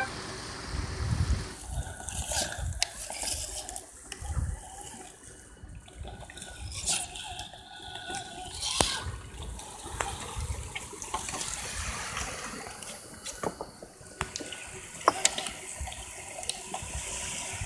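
Water lapping and splashing against shoreline rocks, with low gusts of wind rumbling on the microphone. Scattered sharp clicks and knocks run through it.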